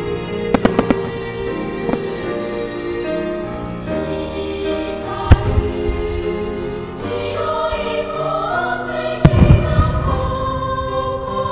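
Music with a choir-like sound playing through a fireworks display, with firework shells bursting over it: a quick run of three or four bangs near the start, a single sharp bang around five seconds in, and a louder burst of bangs with a low rumble near the end.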